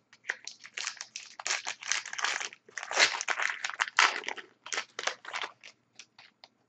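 2011-12 Upper Deck SPx hockey card pack wrapper crinkling as it is torn open and handled, a rapid run of crinkles that thins out to a few near the end.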